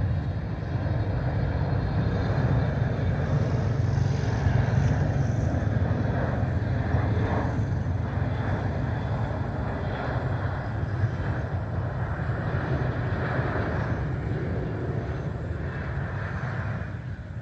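Boeing 777-200LR's GE90 turbofan engines at approach power on final approach, a steady low jet rumble.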